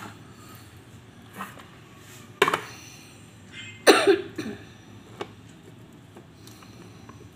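A few sharp clicks and knocks as a tin can is handled on a tiled tabletop and a handheld can opener is clamped onto its rim. Two of the knocks are louder, about a third of the way and halfway through.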